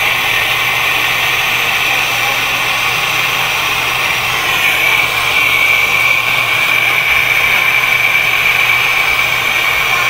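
Handheld gas brazing torch burning with a steady hiss while heating a steel-to-copper tube joint on a refrigerator; the hiss grows louder and sharper about halfway through.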